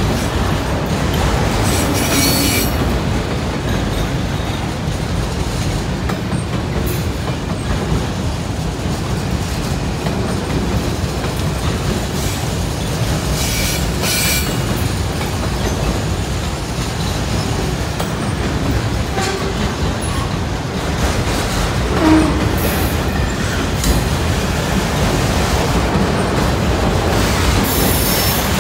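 Heavy loaded autorack freight train rolling past, with a steady low rumble of cars on the rails. Wheels squeal briefly about two seconds in, again around the middle and near the end, and there is a single knock about three-quarters of the way through.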